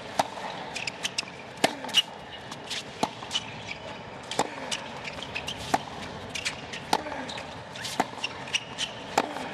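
Tennis rally on a hard court: racquets strike the ball back and forth, a sharp pop about every second and a half, with fainter ticks in between.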